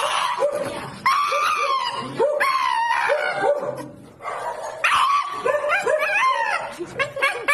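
Shiba Inu in a cone collar yowling and yelping: three long wavering cries, about a second, two seconds and five seconds in, with many short sharp yelps between them.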